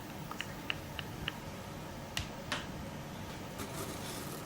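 Light clicks and taps from sundae toppings and utensils being handled. There are about four quick clicks in the first second and a half, then two more a little past two seconds.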